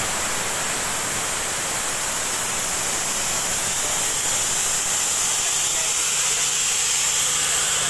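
Borewell on a truck-mounted drilling rig blowing out water and mud under compressed air: a loud, steady rushing hiss, with a low engine hum underneath near the end.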